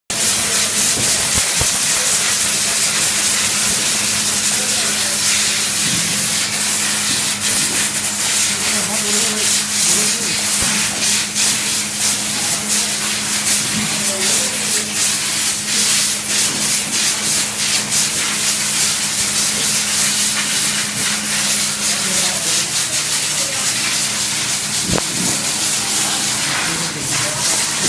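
Bottle sticker-labeling line running: a continuous loud hiss-like machine noise over a steady hum, with frequent small clicks and rattles. The hum fades out about three-quarters of the way through.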